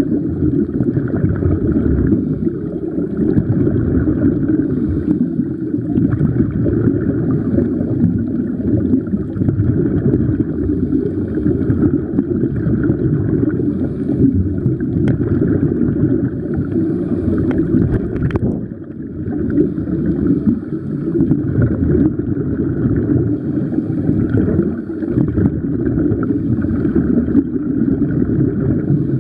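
Steady, muffled underwater rumble picked up by a camera in a waterproof housing, with a single brief click a little past the middle.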